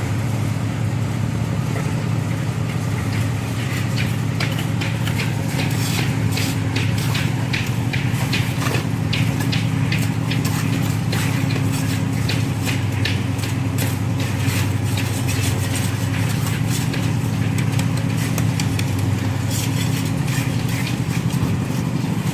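An engine running steadily at idle-like speed. Over it comes a long run of quick scraping and clinking strokes from about four seconds in until near the end.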